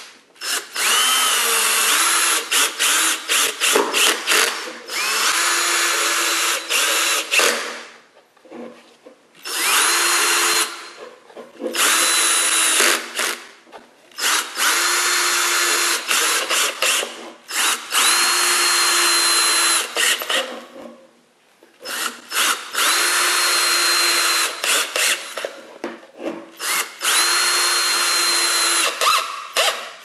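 Cordless drill driving screws through a wooden disc and plastic bucket lid, in about six runs of a few seconds each with short pauses between. Each run's motor whine rises as it spins up, then holds steady with brief stutters as the trigger is eased on and off.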